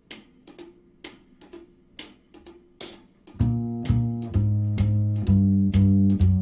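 Instrumental song intro: crisp drum and cymbal hits about twice a second on their own at first, then bass and electric guitar come in with held chords a little over three seconds in, and the band plays on loudly.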